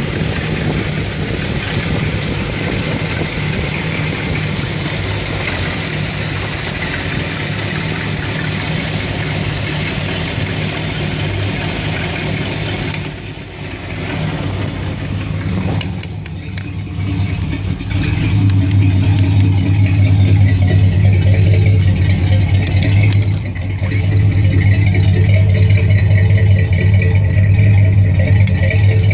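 1975 Dodge B200 van's 360 small-block V8 running at idle, which the owner finds still rough when warm even after a new ignition coil. The sound dips briefly about halfway through, then becomes louder with a strong, steady low hum.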